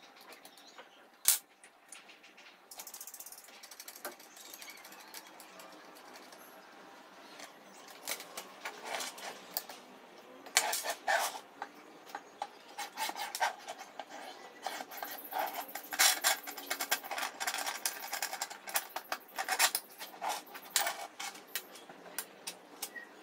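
Handling noise of an angle grinder being fitted into a slidable cut-off stand. There is a sharp click about a second in. From about a third of the way through come many irregular clicks, knocks and rattles of plastic and metal parts as the swing arm is worked on its metal slide rods. The grinder is not running.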